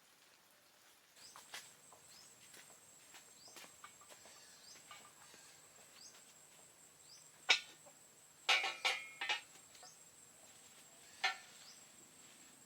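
Steady high-pitched insect drone, cricket-like, with a few faint short chirps, broken by several sharp knocks: one about halfway through, a quick run of them just after, and one more near the end.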